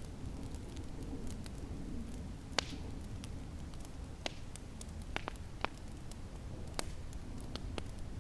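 Wood fire in a fireplace crackling, with irregular sharp pops, the strongest about two and a half, five and a half and seven seconds in, over a low, steady rumble.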